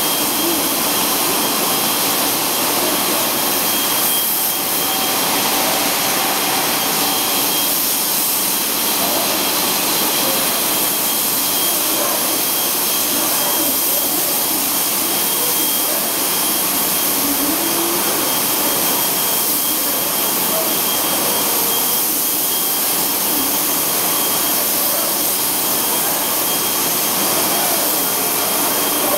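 Steady, loud hiss and rush of air in an automated spray-painting booth while robot arms spray a semi-trailer body, with a thin steady high tone underneath.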